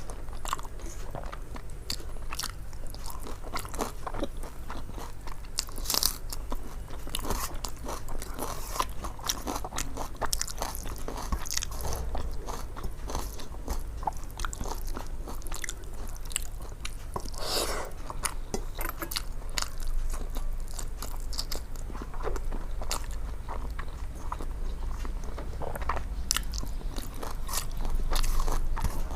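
Close-miked eating sounds: a person chewing and biting into food, with many small irregular crunches and mouth clicks, over a steady low hum.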